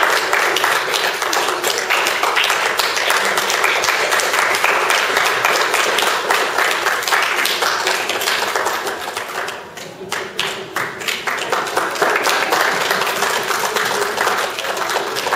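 Audience applauding, a dense run of separate claps. The applause thins briefly about ten seconds in, then swells again.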